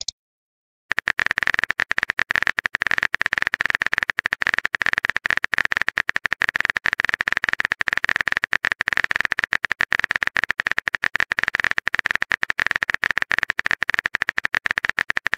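Phone keyboard typing sound effect: a rapid, even run of key clicks, many per second, starting about a second in.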